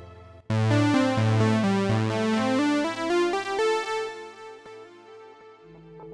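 Polyphonic analogue-modelled software synthesizer, Synapse Audio The Legend on its 'Classic Poly TK' preset, playing a run of chords with a moving bass line that starts sharply about half a second in and dies away over the second half. Near the end a new sustained synth tone comes in.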